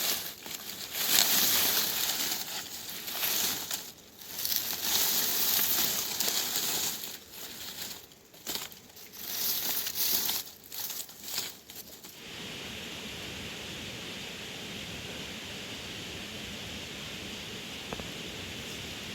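Irregular rustling and crinkling that comes and goes for about twelve seconds, then, after a sudden change, a steady even hiss.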